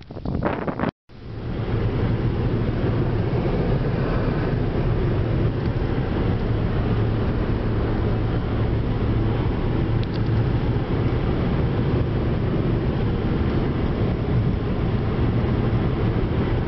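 Steady road noise inside a moving car at highway speed: a constant low hum of engine and tyres. About the first second is gusty wind noise on the microphone, which cuts off sharply before the road noise begins.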